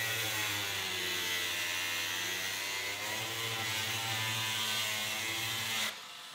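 Angle grinder with a cutting disc running and cutting through a fibreglass deck to rough in window openings. Its motor whine wavers in pitch as the disc bites, then cuts off suddenly about six seconds in.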